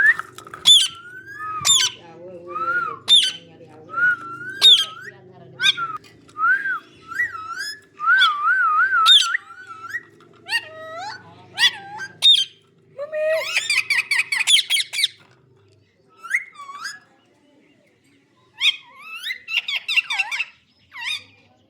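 Green parrot calling in a rapid series of short, sharp screeches and warbling whistles, breaking into two bouts of dense chattering, about two-thirds of the way through and near the end.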